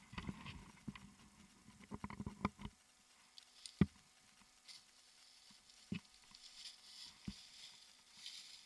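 Climbing gear being handled close to the microphone: clothing and rope rustling for the first couple of seconds, then three sharp knocks, the loudest about four seconds in, with some light rustling among them.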